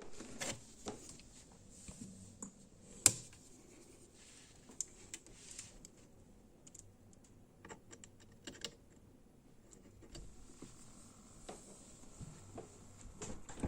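Scattered light clicks and taps of hands working on computer hardware, with one sharper click about three seconds in, over a faint steady hiss.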